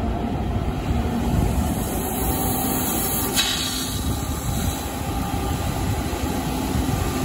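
Fire engine pump charging a hose line: a steady low rumble. About three and a half seconds in the nozzle is opened and a brief hiss marks the water stream starting to spray.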